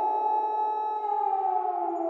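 Civil defense siren sounding a nuclear attack warning wail: two tones sounding together, held at the top of the wail, then starting to fall about a second in.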